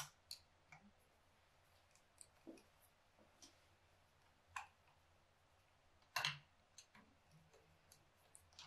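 Faint, scattered clicks of a screwdriver turning the screws that hold down a cap on a carburetor, with one louder click about six seconds in.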